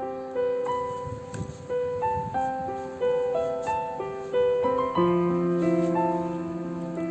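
Background piano music: a melody of held notes changing about twice a second over lower sustained notes.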